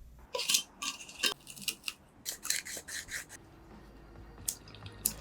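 A run of short, irregular scraping or brushing strokes, about two or three a second, thinning out into a few light clicks after about three seconds.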